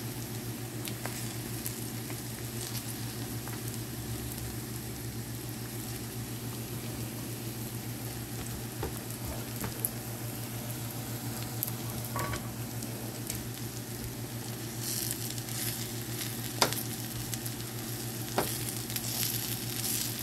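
Shredded chicken frying in oil in a pan with chili powder, sizzling steadily while a spatula stirs it, with a few sharp scrapes or taps against the pan; the sizzle grows brighter near the end. A steady low hum runs underneath.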